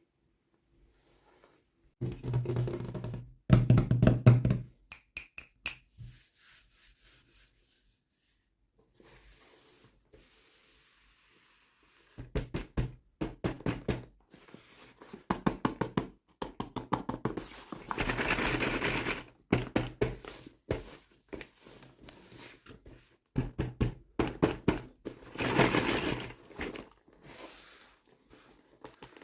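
Toy packaging and small plastic toys being handled and opened by hand: a run of clicks, knocks and taps, with a couple of longer crinkling rustles.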